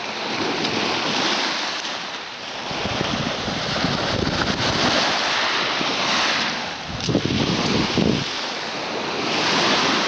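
Black Sea surf washing up and drawing back over a pebble shore, the hiss swelling and easing every few seconds. Wind gusts buffet the microphone with a low rumble.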